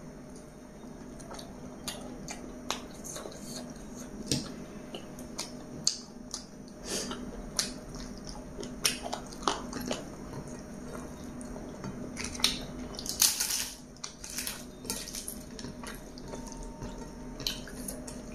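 Close-miked eating by hand: wet, sticky clicks and smacks of fingers squishing chicken biryani in gravy and of a mouth chewing, with one louder noisy burst lasting about a second about two-thirds of the way through.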